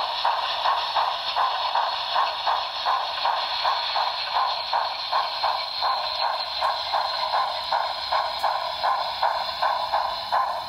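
HO scale model steam locomotive's sound decoder playing a steady exhaust chuff, about three chuffs a second. The sound is thin, from a small onboard speaker, with no bass.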